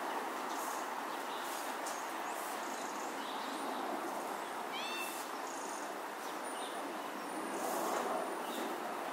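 Steady rushing outdoor noise with small birds chirping now and then, and one short call that bends in pitch about five seconds in.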